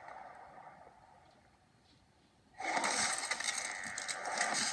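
Mixed soundtrack of several videos playing at once through computer speakers: it fades almost to silence, then cuts back in suddenly and loudly about two and a half seconds in.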